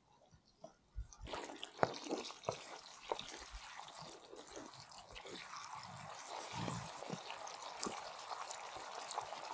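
Chicken curry simmering in a cast iron skillet on campfire embers, with the clack and scrape of a wooden spatula stirring it. After about a second of near silence the simmering starts, with knocks and clicks from the spatula during the first few seconds.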